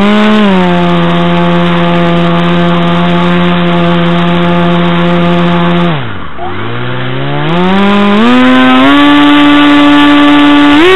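RC model aircraft motor running close to the onboard camera: a steady droning whine that sags and drops away about six seconds in, then climbs in steps to a higher pitch as it is throttled up again.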